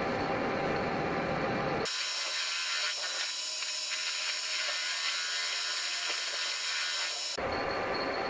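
Metal lathe running with its chuck spinning. From about two seconds in, the low hum cuts out abruptly for some five seconds, leaving only a thin, hissy high sound, and then comes back.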